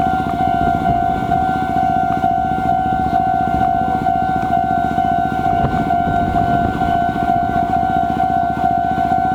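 Japanese railway level-crossing alarm ringing continuously, a rapidly repeating electronic clang at one steady pitch. Under it a Meitetsu 6000 series electric train rumbles over the crossing, its wheels and running gear loudest about halfway through.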